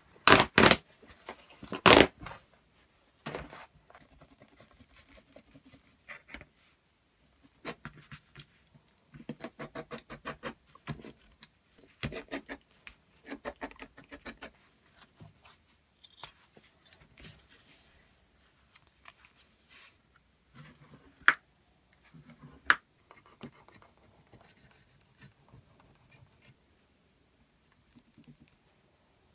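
Leather being handled and worked on a wooden workbench: rustling and scraping, with a run of quick scratchy strokes in the middle and a few sharp clicks and knocks near the start and twice later on.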